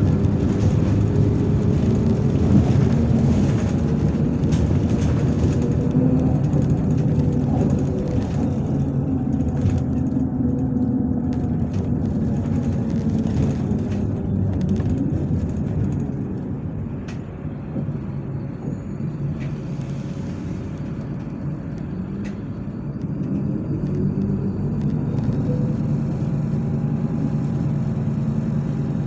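MAZ-103 diesel city bus engine heard from inside the bus while riding. The engine pitch falls as the bus slows and drops to a quieter low-speed stretch about halfway through, then rises again as the bus pulls away.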